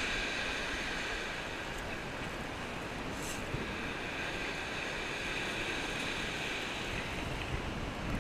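Steady wash of surf on a shingle beach, with wind over it.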